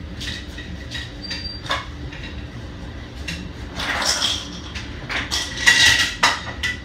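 Kitchen handling noises as ice is fetched for cups of water: scattered clicks and knocks, with two louder rattling spells, one about four seconds in and a longer one around six seconds in.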